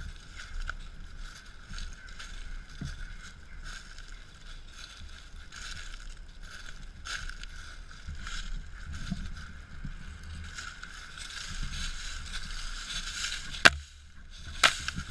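Dry fallen leaves rustling and crunching under a dog's paws and a person's feet, in irregular crackles over a steady faint high tone. Two sharp clicks come near the end, the first the loudest.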